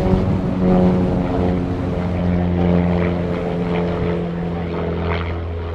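Pitts S1-S aerobatic biplane's four-cylinder Lycoming engine and propeller running hard in flight, the pitch sliding slightly lower over the first couple of seconds and then holding steady.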